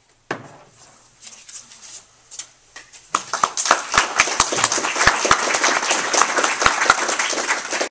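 Audience applauding. The clapping starts about three seconds in and quickly fills out into steady applause, after a few scattered sounds.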